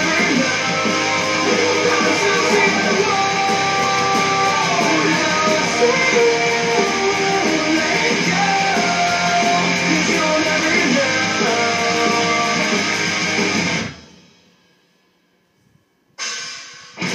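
Schecter electric guitar playing a heavy rock riff, picked. The music fades out about fourteen seconds in, stops for about two seconds, then comes back in just before the end.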